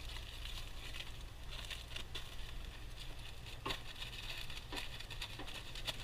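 Aluminium foil crinkling and rustling as a grilled fish is worked out of its foil pack with a spatula, with a few sharp clicks of the metal utensil in the second half.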